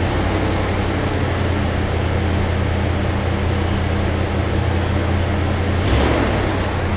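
1966 Ford Galaxie 500's 352 FE V8 idling steadily just after a cold start at about 45 °F, heard from inside the cabin, with a brief louder rush about six seconds in.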